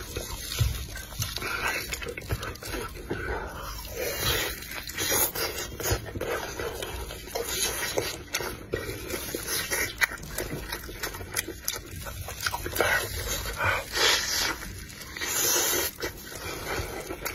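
Close-up, irregular wet chewing and lip-smacking with short clicks as a person eats a sticky, sauce-glazed chicken wing stuffed with glutinous rice.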